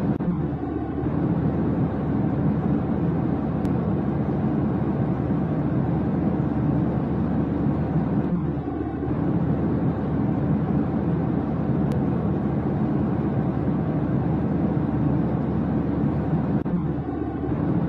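Steady low rumbling drone, like engine noise, with a faint brief sound recurring about every eight seconds.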